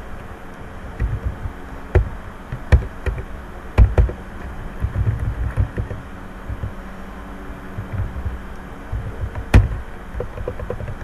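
Computer keyboard keystrokes: a few sharp clicks spaced irregularly, a second or more apart, over a steady low hum.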